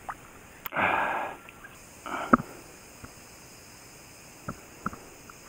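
Handling noises in a small boat: a click and a brief scraping rush about a second in, another short rush just past two seconds, then a few light taps.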